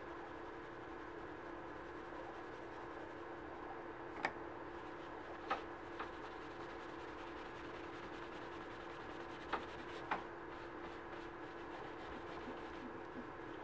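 A dauber rubbing leather dye onto a small leather key chain over paper towels: soft, faint scrubbing over a steady hum, with a handful of sharp clicks in the middle.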